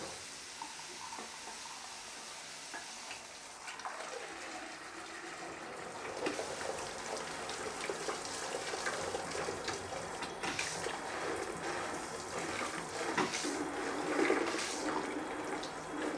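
Water spraying from a handheld bidet shower onto a leather hiking boot and splashing into a toilet bowl as the boot is rinsed clean. A steady hiss of spray with irregular splashes, a little louder after the first few seconds.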